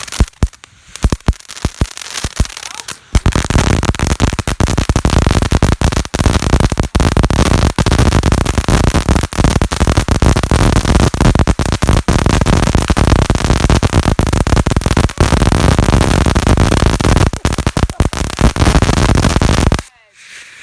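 Lil' Patriot Javabreak consumer firework going off: a few separate sharp pops, then from about three seconds in a dense, continuous crackling that is its crackle finale, stopping abruptly near the end.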